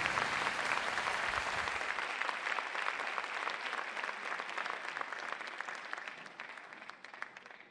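Theatre audience applauding, a dense spread of clapping that thins out and fades away near the end.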